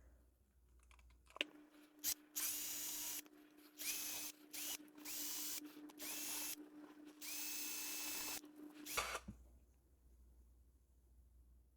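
A small power drill run in about six short bursts, each whining up in pitch as it spins up, cleaning built-up grime out of a Snap-on flex-head ratchet.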